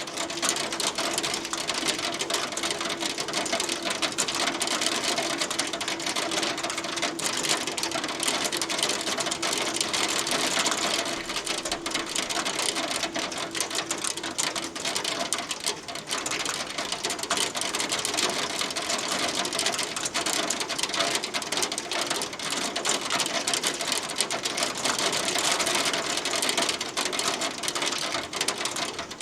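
Hail falling: a steady, dense clatter of hailstones striking a hard surface, many rapid ticks blending into a continuous hiss.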